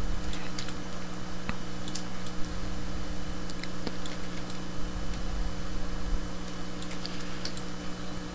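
A few scattered light clicks of a computer keyboard and mouse over a steady electrical hum.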